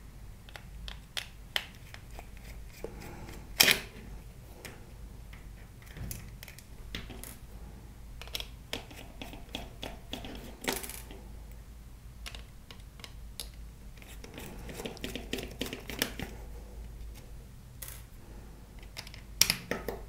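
Light scattered clicks and taps of a small screwdriver working screws out of a plastic radio-control transmitter's display board and housing, with a few sharper knocks about four seconds in, around eleven seconds and near the end.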